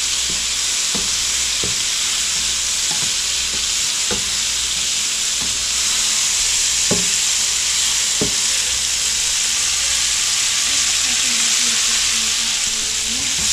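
Chunks of pompano fish sizzling as they fry in a nonstick pan. A steady hiss runs throughout, with a few light taps and scrapes of a plastic spatula as the pieces are rolled around.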